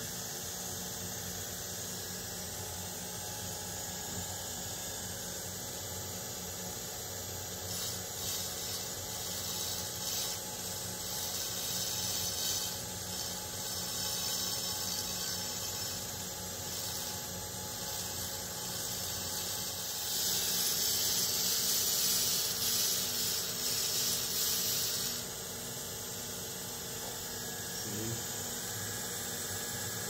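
Narrow bench belt sander running steadily, with the abrasive rasp of a steel golf shaft tip pressed against the belt in several passes. The loudest pass comes about twenty seconds in and lasts some five seconds. This is the shaft tip being prepped before the clubhead is fitted.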